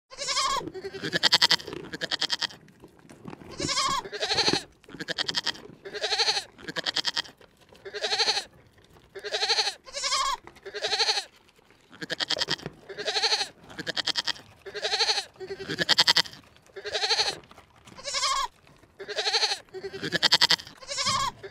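An animal bleating over and over, about one call a second, each call short and quavering.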